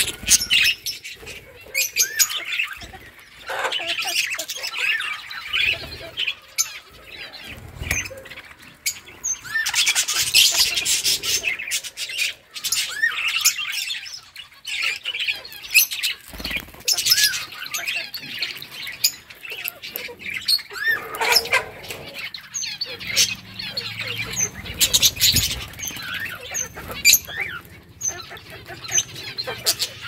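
A flock of budgerigars chirping and chattering in many short calls, with clicks and rustles as they peck at leafy greens.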